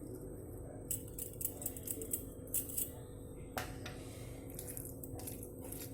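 Chicken pieces being mixed into a thick spice marinade in a bowl: irregular soft clicks and squelches, several a second, starting about a second in.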